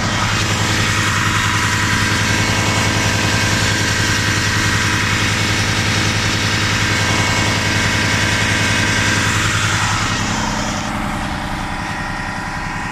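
DAF XF 460's PACCAR MX-13 inline-six diesel idling steadily. It is a little louder and hissier for about the first ten seconds, then eases off slightly.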